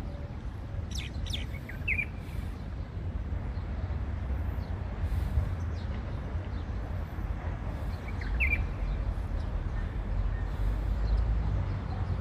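A steady low background rumble with a few short bird chirps: a cluster in the first two seconds and one more about eight seconds in.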